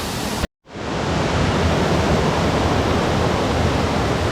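Steady rushing of water from a river or waterfall. It is broken by a split-second gap about half a second in, then resumes slightly louder.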